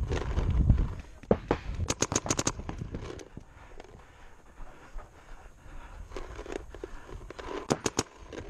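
Paintball marker firing fast strings of shots: a couple of shots about a second in, a rapid burst of about seven just after two seconds, and three more near the end. A low rumble runs under the first second.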